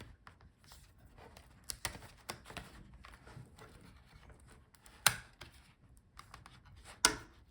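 Plastic front bezel of a laptop screen being pried loose: scattered light clicks and scraping, with two sharp plastic clicks about five and seven seconds in.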